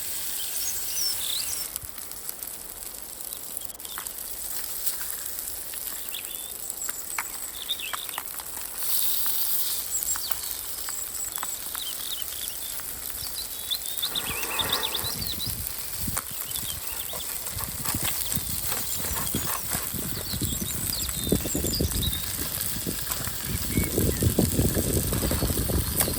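Small birds chirping in short, repeated calls. A low, uneven rumble comes in about halfway through and grows louder toward the end.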